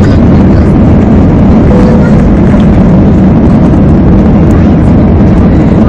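Airbus A320 airliner climbing shortly after takeoff, heard from inside the passenger cabin: a loud, steady rumble of engine and airflow noise, heaviest in the low end.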